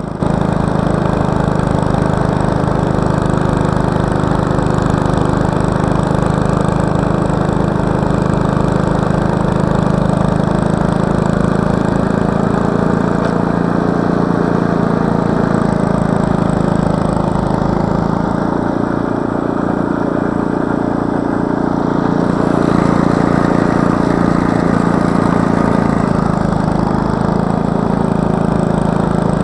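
Snowblower engine running steadily under load while the machine throws snow out of its chute, its note shifting slightly about two-thirds of the way through.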